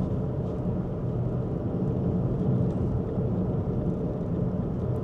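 Steady road and engine noise heard inside the cabin of a moving car: a low, even rumble of tyres on asphalt.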